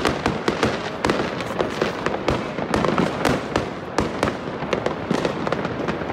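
Many fireworks going off at once: a dense, unbroken stream of overlapping bangs and crackles, several a second.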